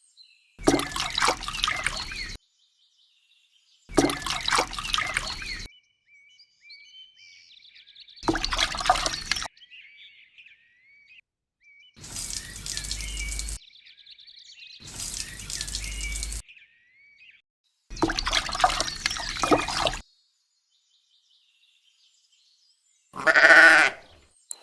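Water splashing and trickling in a string of short bursts with abrupt stops between them, faint high chirps in the gaps, and a short animal bleat near the end.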